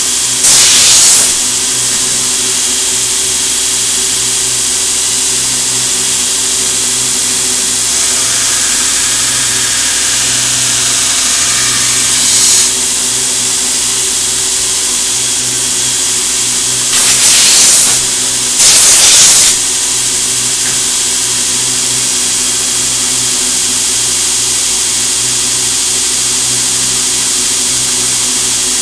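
Knife-making belt grinder running steadily with no blade on the belt, giving a constant mechanical hum. Three short, loud hissing bursts cut in over it, one about half a second in and two close together past the middle.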